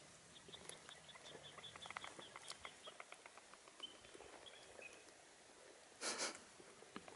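Bamboo partridges giving soft, quick chip notes, about five a second for a couple of seconds, then a few more, with faint clicks. A short, loud rustle about six seconds in.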